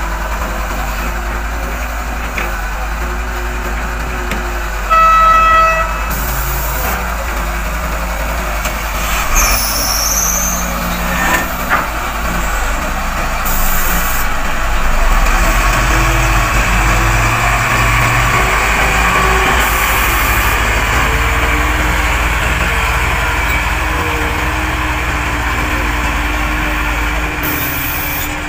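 Heavy engines of an excavator and dump trucks running steadily, with a vehicle horn sounding once for about a second about five seconds in. A short high squeal comes about ten seconds in, followed by a few light knocks.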